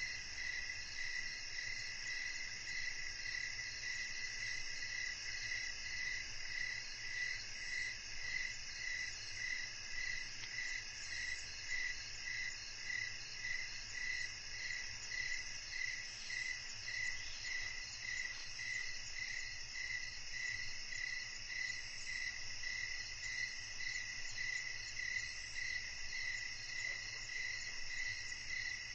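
A steady evening chorus of crickets and other insects: several overlapping high trills, one of them pulsing evenly about one and a half times a second.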